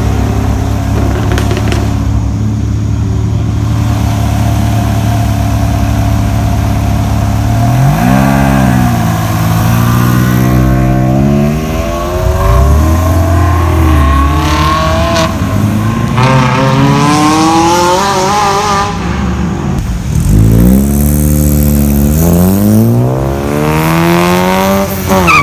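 Car engines: a steady idle for about eight seconds, then about five engine notes in a row that climb in pitch, some falling away again, as cars rev and accelerate.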